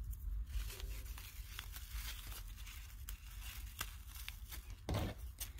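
Grosgrain ribbon bow being handled and adjusted by hand: faint rustling and small scratchy clicks of the stiff ribbon, with a brief louder swish near the end.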